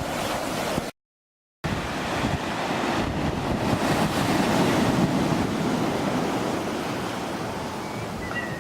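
Sea waves washing onto the beach, with wind buffeting the microphone; the wash swells to its loudest around the middle and then eases. The sound drops out completely for about half a second a second in.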